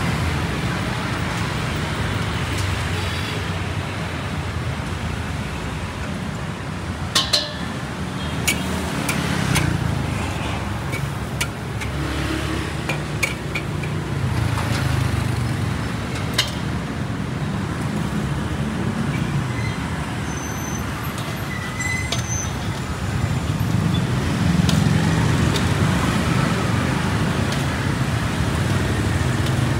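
Steady street ambience of road traffic, with a few sharp metallic clinks about seven to nine seconds in.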